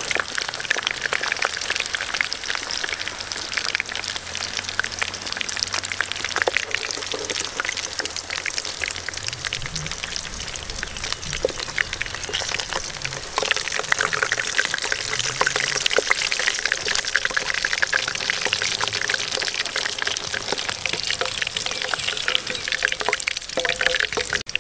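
Meat sizzling as it cooks, a dense steady sizzle full of small crackling pops.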